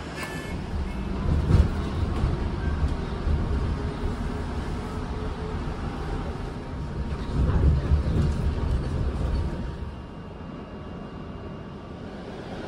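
Low rumbling vehicle noise, swelling louder twice and easing off near the end, with a faint steady tone above it.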